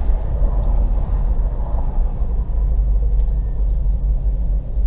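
BMW X5 E53 engine and road noise while driving at high revs: a steady low rumble. At these revs the engine knock, which a mechanic takes for a connecting-rod pin knock, is barely audible.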